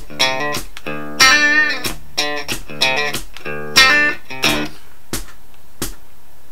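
Fender Telecaster electric guitar in drop D tuning, played through an amp: a run of picked notes and chords, several of them bending in pitch. The playing stops a little under five seconds in, leaving the last chord ringing out and two short clicks.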